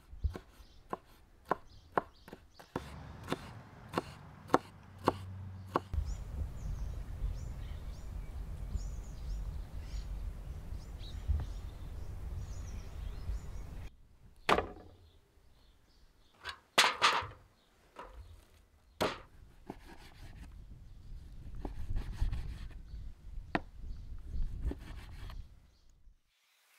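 Knife chopping vegetables on a wooden cutting board: a quick run of sharp knocks, about two or three a second, for the first few seconds. Scattered, louder knocks follow in the second half.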